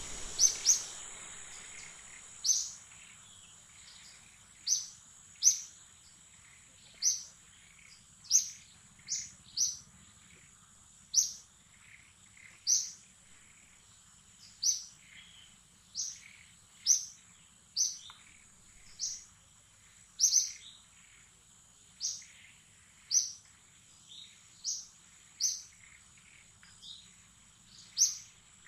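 A bird calling over and over in short, sharp, high chirps that drop in pitch, about one a second, over a faint steady high-pitched whine.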